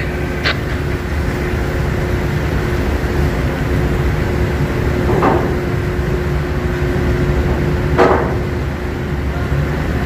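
Steady low mechanical rumble with a constant hum on a ship's deck while a rescue boat hangs from its davit, with two short knocks about five and eight seconds in, the second the louder.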